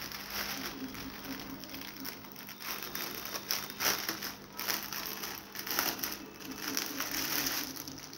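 Thin plastic packaging crinkling and crackling as a clothing packet is handled and unwrapped, with a few louder bursts of crinkling along the way.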